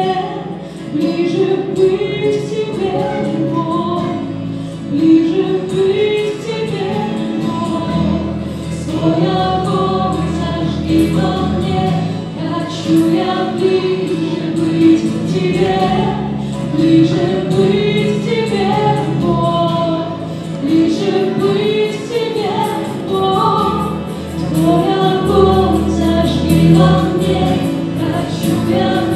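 Live Christian worship song: a group of male and female singers singing together, accompanied by acoustic guitar, electric bass guitar and keyboard, with the bass notes changing every few seconds.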